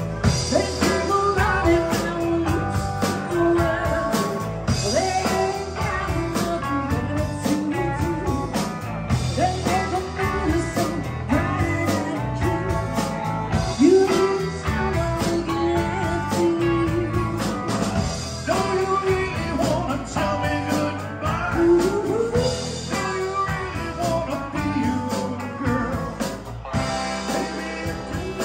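Live rock-blues band: a woman sings lead over electric guitars and drums.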